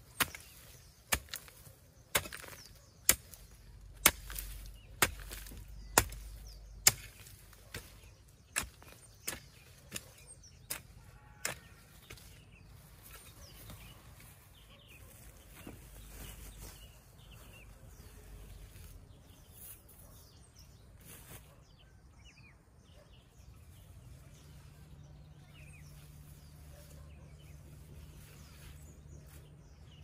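Hand hoe chopping into soil, about one stroke a second, some fourteen strikes, the last few weaker, stopping about a third of the way through. After that, only faint scraping of soil being handled.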